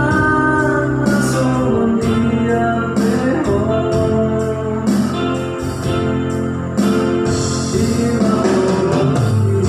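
Electronic keyboard playing a song accompaniment with a steady bass line, and a voice singing over it.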